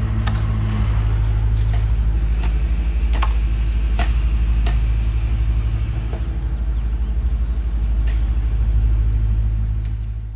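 Heavy diesel engine of road-paving equipment running steadily with a deep, pulsing rumble, with scattered sharp clicks and knocks over it.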